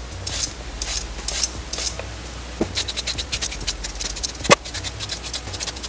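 A vegetable peeler scraping down a raw carrot in quick repeated strokes, each a short scratch, coming several a second in the second half. One louder knock about three-quarters of the way through.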